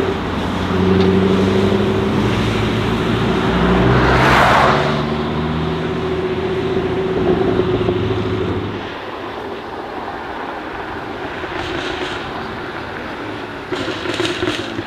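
Jaguar F-Type's supercharged 5.0-litre V8 running loud, its revs rising and falling, loudest about four and a half seconds in, then fading away about nine seconds in. A few short sharp cracks follow near the end.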